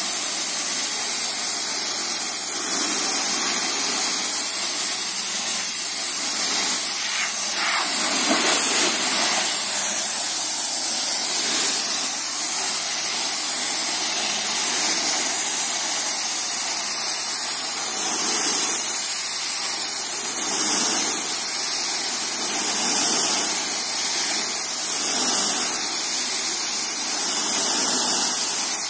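High-pressure washer jet blasting water onto a concrete floor: a loud, steady hiss of spray.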